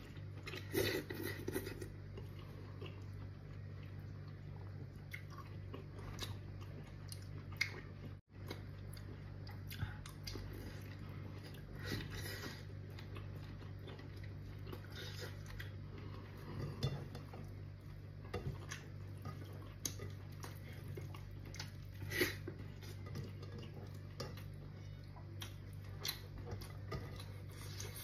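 A person eating with their hands from a plate: chewing, and scattered light clicks and clinks of fingers and food against the plate, over a steady low hum. The sound drops out for an instant about eight seconds in.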